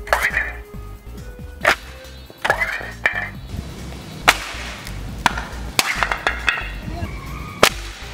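A boot stamping on a clear plastic Index helmet visor on a concrete floor: about eight sharp plastic clacks and thuds at an uneven pace, the visor staying whole without cracking. Background music plays underneath.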